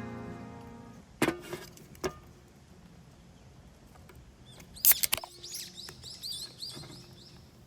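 Background music fading out, a few sharp knocks, then a bird calling with a quick run of short, repeated high chirps.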